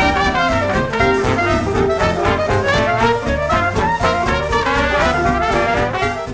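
Upbeat instrumental background music with brass and a steady beat, fading out near the end.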